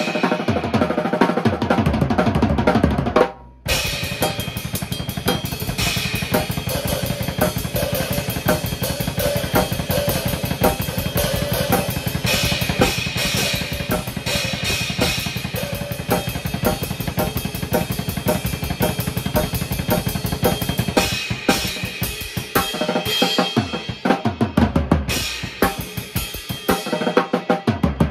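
Drum kit played with sticks: a dense run of strokes on snare and bass drum under steady cymbal or hi-hat. The playing stops briefly about three seconds in, then runs on without a break.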